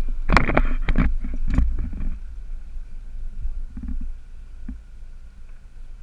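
Honda 150 four-stroke outboard motor running slowly at the stern, with an irregular low gurgling rumble that is loudest in the first two seconds, then settles to a quieter steady rumble with a faint whine.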